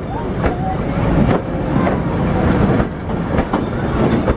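Heritage passenger carriages rolling slowly past, a steady rumble of wheels on rail with a sharp click about once a second as the wheels pass over the rail joints. Faint voices of people on the platform are heard over it.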